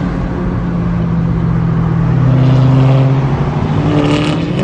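Car engine running on the road, swelling louder as it revs up a little before three seconds in, with a shorter rising note about four seconds in.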